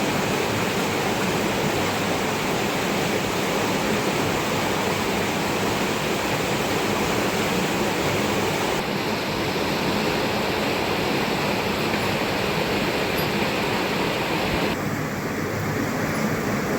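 Steady rushing sound of water. The tone turns abruptly duller about nine seconds in and again near the end.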